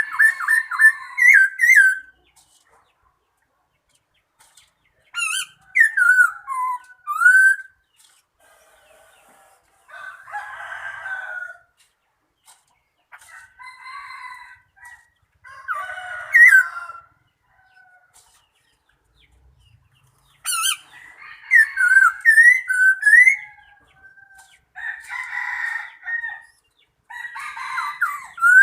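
A bird calling in repeated bouts a few seconds apart. Each bout is a run of whistled, swooping notes, and several open with sharp, very high chirps. Some bouts are fainter than others.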